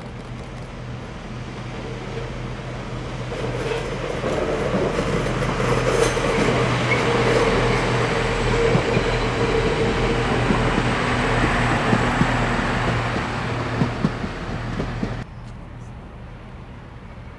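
PESA Link diesel multiple unit passing along the platform, its engines droning and its wheels running on the rails, growing louder as it approaches. A few sharp wheel clicks come near the end before the sound cuts off suddenly.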